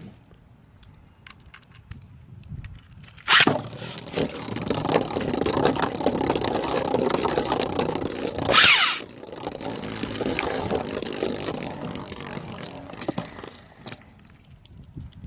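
Plastic Beyblade top and launcher being handled and set up. There is a sharp click about three seconds in, a few seconds of steady mechanical rattling whirr, a louder brief burst near the middle, and a few light clicks later.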